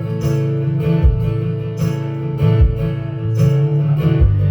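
Live band playing between sung lines: strummed guitar over bass, with a steady low beat landing a little more than once a second.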